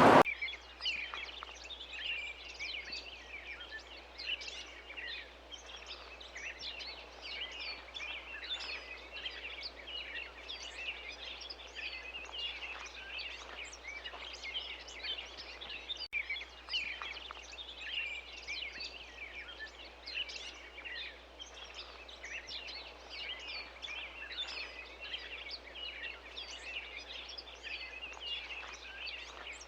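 A flock of small birds chirping, many short, high chirps overlapping without a break.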